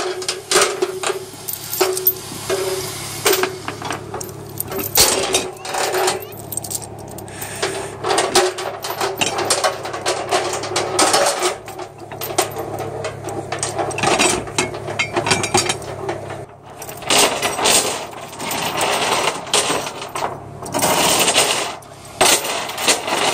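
Steel chain being handled and hooked up, its links clinking and rattling in irregular clatters.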